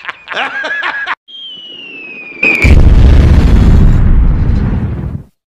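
Cartoon-style falling-bomb sound effect: a thin whistle sliding down in pitch, then a loud, deep explosion boom that dies away over about two and a half seconds.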